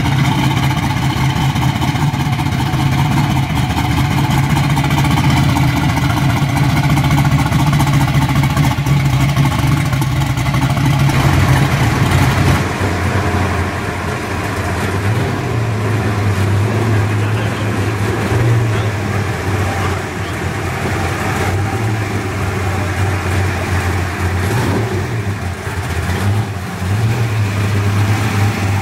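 Big-engined pro street Chevy Novas running at low speed: first the supercharged V8 of a white Chevy II Nova, then, after a cut about twelve seconds in, the V8 of a blue Nova with light throttle changes as it drives slowly.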